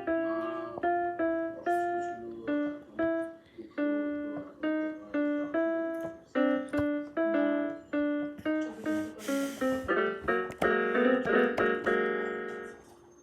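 Small electronic keyboard on its piano voice, playing a simple tune one note at a time, about two notes a second, then several notes held together near the end. A brief hiss about nine seconds in.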